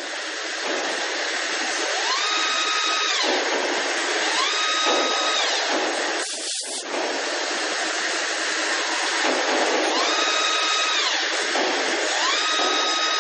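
Leadwell VE-32i CNC machining centre drilling small holes under a steady spray hiss. Four times, a machine whine rises in pitch, holds for about a second and falls away. The hiss drops out briefly about six and a half seconds in.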